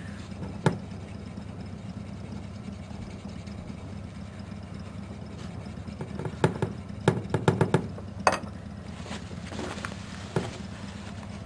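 Hand polishing of a chrome exhaust pipe with a damp cloth and polishing paste: rubbing and handling with sharp clicks and knocks of fingers and pipe against the wooden table, most of them in a quick cluster about six to eight seconds in, over a steady low hum.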